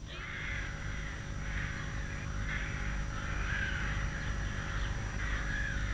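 A flock of crows cawing, the calls overlapping without a break.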